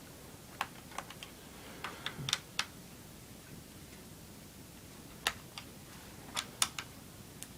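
Irregular small, sharp clicks and taps, in two clusters, of a screwdriver and screws working against a laptop's plastic bottom cover as the cover screws are taken out.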